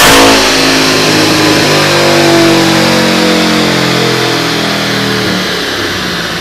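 Supercharged 6.2-litre LT4 V8 on a chassis dyno coming off a full-throttle pull. The flat-out roar cuts off about half a second in, then the engine note and the spinning drivetrain wind down in a slowly falling pitch over several seconds.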